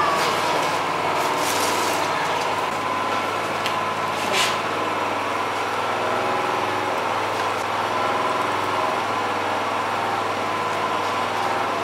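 Steady mechanical hum of a running motor, made of several held tones at an even level, with a brief noise about four seconds in.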